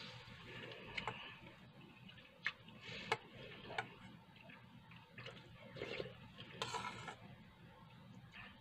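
Metal spoon clinking and scraping in a stainless steel bowl as rice is scooped up: a handful of separate light clicks, with a longer scrape a little past the middle.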